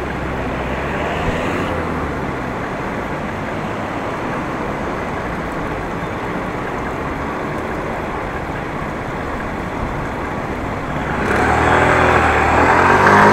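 Road traffic noise from passing cars. About eleven seconds in it grows louder as a vehicle's engine comes close, with a steady pitched drone.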